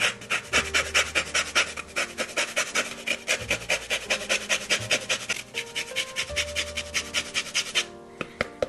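A kitchen tool scraped by hand in quick, even rasping strokes, about five a second, stopping near the end; soft background music plays underneath.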